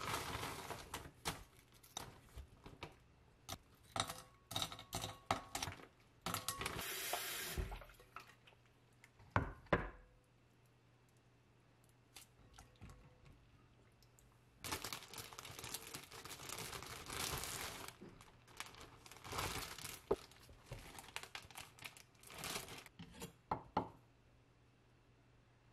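Kitchen prep sounds in bursts: a plastic bag of frozen shrimp rustling and tearing over a glass bowl, then raw shrimp being handled and peeled in the bowl with wet, watery sounds. Near the end comes quieter knife work on stacked bread on a wooden cutting board.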